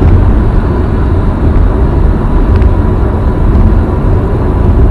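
Steady road and tyre noise with a deep rumble inside a Nissan Leaf's cabin while cruising at highway speed, around 100 km/h. There is no engine note, since the car is electric.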